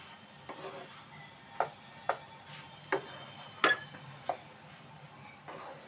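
A spatula scraping and knocking against a wok while stir-frying noodles: irregular sharp taps, the loudest about three and a half seconds in.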